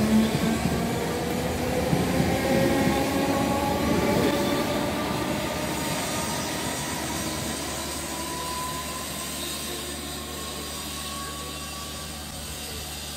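Merseyrail electric multiple unit pulling out of a station, its traction motors whining with a steadily rising pitch as it gathers speed, the sound fading as the train draws away.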